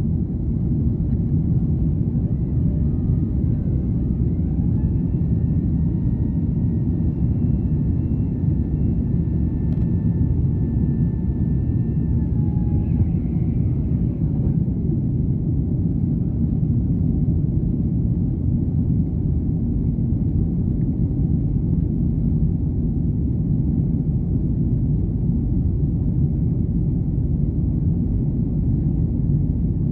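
Boeing 767-300ER jet engines at takeoff thrust, heard inside the cabin from a seat over the wing: a loud, steady roar through the takeoff roll and climb-out. A faint whine rises about three seconds in and fades around fourteen seconds in.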